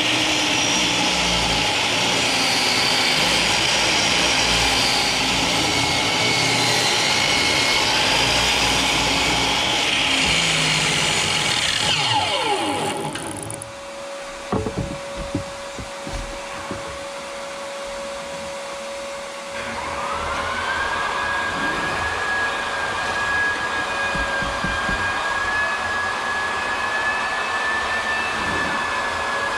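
An electric power tool runs steadily, then spins down with a falling whine about 12 seconds in. A few knocks of wood being handled follow. About 20 seconds in, another motor-driven tool starts and runs with a steady high whine.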